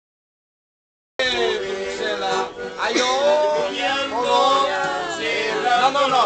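Dead silence for about a second, then live music starts abruptly: a man singing over acoustic guitar and accordion.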